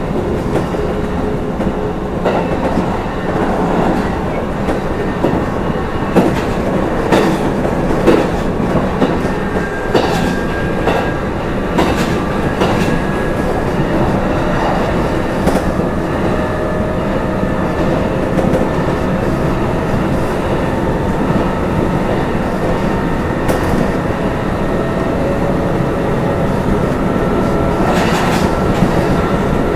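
Kintetsu 12200 series electric train running along the line: a steady rumble of wheels on rail with a faint motor whine that drifts slightly in pitch. Wheel clicks over rail joints come in a cluster from about six to twelve seconds in and again near the end.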